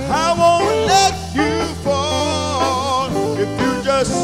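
Gospel singing with a live band: a male voice sings a drawn-out run with vibrato and no clear words, over sustained bass and guitar.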